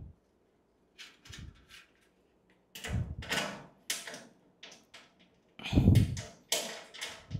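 Thin sheet-metal cabinet parts knocking and scraping as a flimsy top bracket is fitted onto the filing cabinet's frame by hand. The heaviest clanks come about three seconds in and again around six seconds in.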